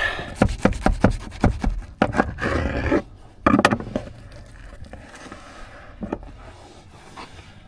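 Knife sawing through a large sourdough sandwich, the crust crackling in quick irregular scrapes for about three seconds, with one more short cut a little later before it goes quieter.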